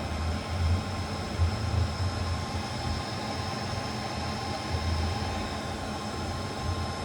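Steady low hum with fan-like noise from an amplifier dyno test bench, with a faint steady high-pitched tone, as a car-audio amplifier is set up for a power test.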